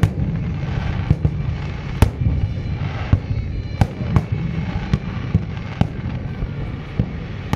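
Fireworks display: aerial shells bursting in sharp bangs at irregular intervals, the loudest about two, four and six seconds in, over a continuous low rumble of further bursts.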